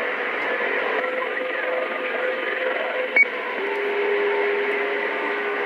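Stryker SR-955HP CB radio's speaker hissing with band noise on an open skip channel, with steady whistling tones running through it. A short beep about three seconds in.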